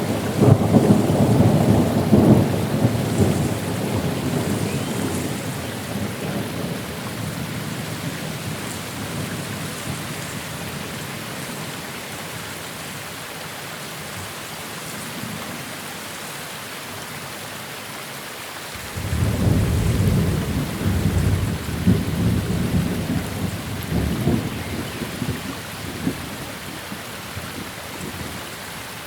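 Steady rain with two rolls of thunder: one rumbling at the start and fading away over several seconds, and another that breaks suddenly about two-thirds of the way through and rumbles on for several seconds.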